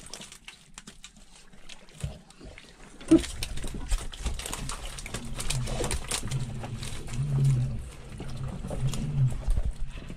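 Repeated low grunting pulses from about three seconds in, from pufferfish caught in the trap, over wet clicks and slaps of fish being handled in a net bag.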